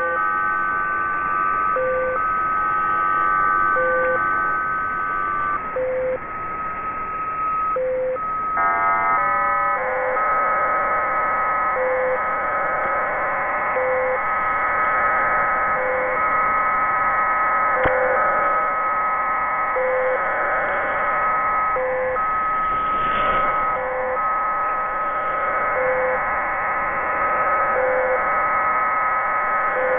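Electronic music: sustained synth chords under a regular pattern of beeps, a low beep about every two seconds and higher ones about once a second. About nine seconds in, a quick run of short stepped tones leads into a fuller, denser chord.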